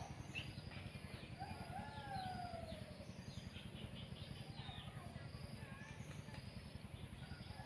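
Birds calling: a slurred descending whistle about one and a half seconds in, then scattered short high chirps. A steady low rumble runs underneath.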